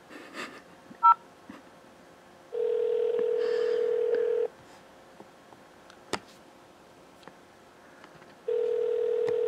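A single touch-tone keypress beep about a second in, with the two pitches of the 0 key, then a telephone ringback tone over the line: two-second rings with about four seconds between them. The call is ringing through to an associate.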